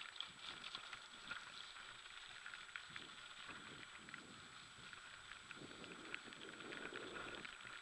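Mountain bike rolling fast down a wet gravel track: a faint, dense crackle of tyres on grit with small rattles, under a thin steady high whine.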